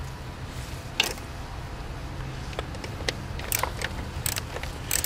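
Small ratchet wrench clicking and metal tool taps as the screws holding a MAP sensor to the intake manifold are tightened by hand. The clicks are scattered rather than a steady run: one sharp click about a second in, then several more through the second half.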